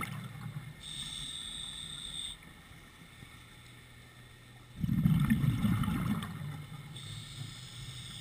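A scuba diver breathing through an open-circuit regulator underwater. There is a thin hissing inhalation about a second in, a low bubbling rumble of exhaled bubbles about five seconds in, and another inhalation hiss near the end.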